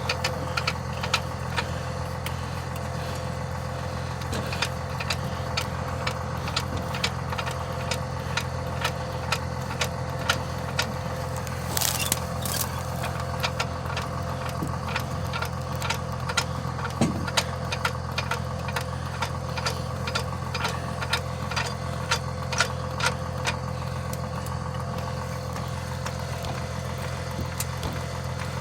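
An engine idling steadily, with frequent light clicks and ticks over it and a brief louder noise about twelve seconds in.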